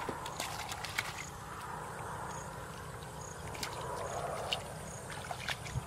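Shallow muddy rice-paddy water sloshing and splashing as hands grope through it for fish, with scattered small clicks over a low steady rumble.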